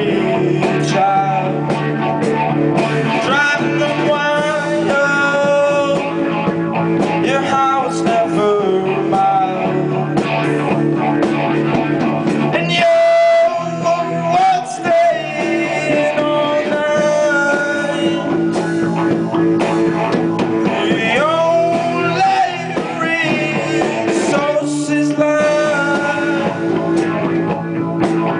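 Live rock band: electric guitars playing with a male lead vocal at the microphone. About halfway through, the low end drops out briefly under a single held note before the full band comes back in.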